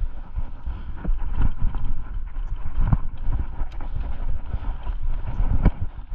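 Mountain bike, a Rocky Mountain Instinct, riding a cross-country trail: a steady low rumble of tyres over the ground and wind on the microphone, with irregular knocks and rattles as it rolls over bumps, the sharpest about three seconds in and near the end.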